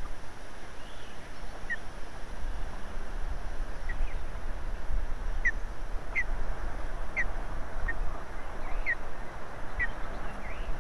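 Osprey calling: a series of short, sharp whistled chirps, about one a second, over steady wind noise on the microphone.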